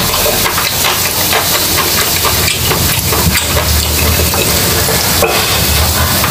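Pork steak strips sizzling on a grill plate: a steady, dense crackle with a low hum underneath.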